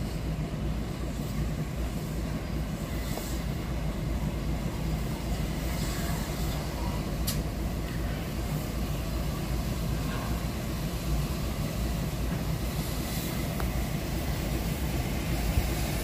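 A1 Pacific steam locomotive Tornado moving slowly along the track, heard as a low steady rumble without clear exhaust beats.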